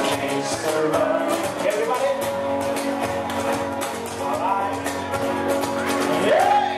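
A man singing and strumming an acoustic guitar into a microphone, live, with the sung phrases gliding up and down over steady strummed chords.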